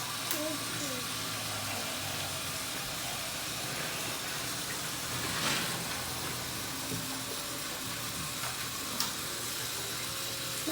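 Battery-powered GeoTrax toy train running on plastic track: a steady low motor hum under a hiss, with a few faint clicks.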